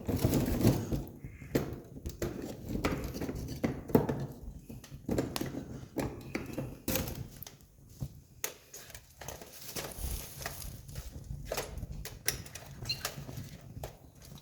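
Wood campfire burning, crackling with irregular sharp pops and snaps over a low rushing sound of the flames.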